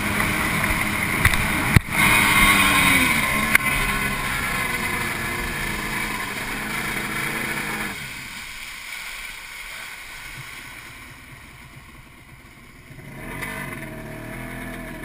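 Jet ski engine running at speed with water and wind rush, its pitch falling a couple of seconds in. About halfway through the engine and water noise drop sharply to a much lower level, then come back up somewhat near the end.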